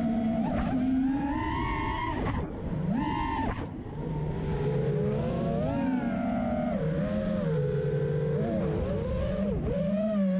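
An FPV quadcopter's Stout V3 brushless motors and propellers whining. The pitch rises and falls with the throttle, and it cuts out briefly twice in the first four seconds.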